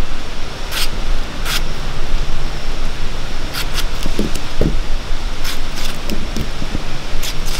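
A small knife cutting a tomato held in the hand, making short crisp clicks as the blade cuts through, with a few soft thuds as pieces drop into a clay bowl. A loud, steady rushing noise runs underneath.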